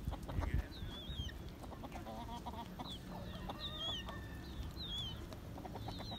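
Feral chickens clucking, with many high, short, falling peeps from young chicks scattered throughout.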